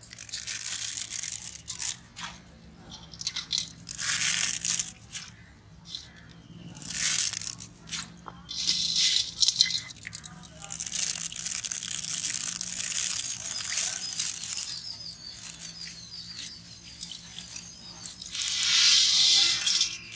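Dry noodle nests crackling and rustling as they are broken by hand and dropped into a large iron kadai of water, in repeated bursts a second or two long.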